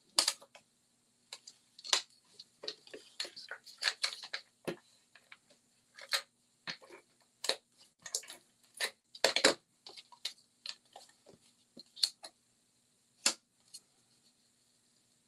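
Cardstock pieces being handled and pressed together on a craft mat: irregular paper rustles, light taps and clicks, with a faint steady hum underneath.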